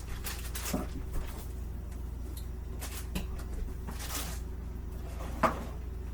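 Kitchen handling sounds: a few light knocks and clatters, the sharpest about five and a half seconds in, over a steady low hum.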